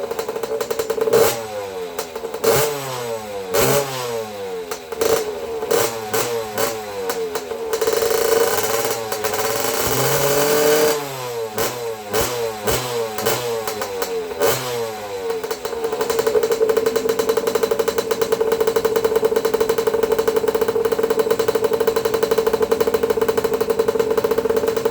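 Small 50cc pit-bike engine revving up and down over and over for about fifteen seconds, then running at a steady note. The rider says it is still bogging out on the top end and thinks it needs a better air filter.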